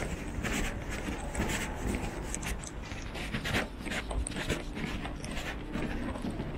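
Footsteps of a person walking: a quick, irregular series of soft taps, with rustling of clothing.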